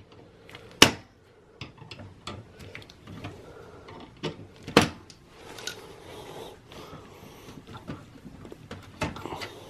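Pliers and metal parts clicking and knocking inside a Dell Precision T5500 workstation case while a stuck motherboard screw is worked loose. There are scattered sharp clicks, the loudest about a second in and another near the middle, and a quick run of clicks near the end.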